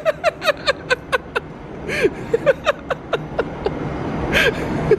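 People laughing in quick runs of short syllables, densest in the first second and a half, with breathy bursts about two seconds in and again near the end, over a low steady rumble.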